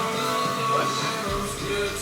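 A song with singing playing.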